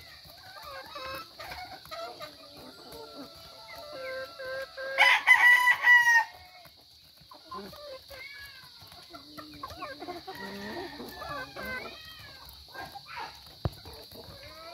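Chickens clucking softly throughout, and a rooster crowing once, loudly, for about a second, five seconds in.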